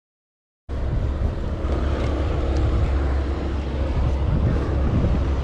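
Small boat's outboard motor running steadily with wind buffeting the microphone, cutting in abruptly under a second in.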